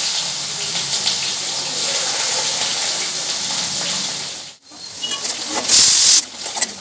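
Sliced bitter gourd (karela) sizzling loudly in hot oil in an iron wok as it fries. The sizzle drops away briefly about four and a half seconds in, then flares up loud again near the end.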